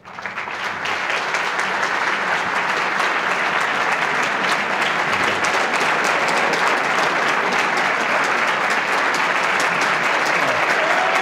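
Large audience applauding, swelling over the first second and then holding steady.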